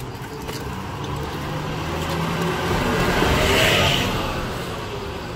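A car passing by on the road, its noise growing louder to a peak about three and a half seconds in, then fading.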